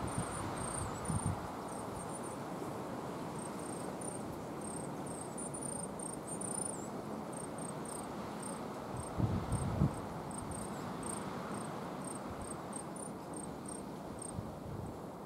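Coal tit calling: a long series of short, very high, thin notes, a few a second at irregular spacing, some slightly wavering. Under it runs a steady rushing background noise, broken by a low thud about a second in and a louder pair of thuds around nine seconds in.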